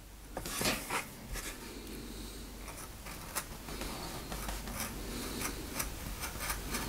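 Point of a thin-bladed intarsia carving knife scoring fine lines in a wooden board: a quiet run of short scratching, rasping cuts as the blade drags through the wood fibres.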